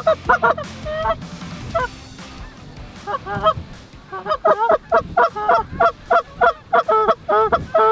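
Canada goose honks and clucks: a few scattered honks, then from about four seconds in a fast, excited run of about three calls a second.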